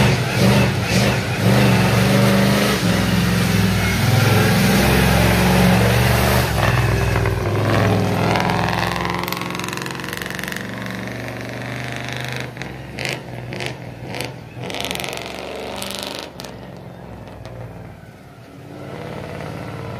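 Monster truck engine running loud at high revs; about eight seconds in, its pitch falls and the sound fades, leaving a few sharp knocks.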